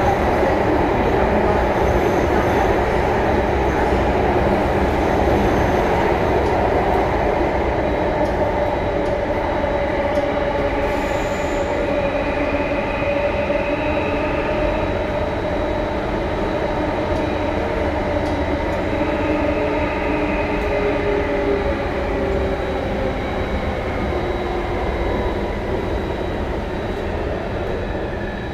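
SMRT C830 metro train running between stations, heard from inside the carriage: a steady rumble of wheels on rail with a fainter whine that rises and falls in pitch. It eases off slightly toward the end.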